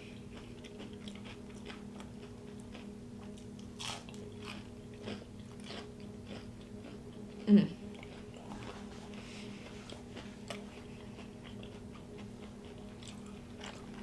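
Close-miked eating: a mukbang host chewing and biting food, with many small wet mouth clicks and smacks. About seven and a half seconds in there is one short, louder voiced sound that drops in pitch. A faint steady hum sits underneath.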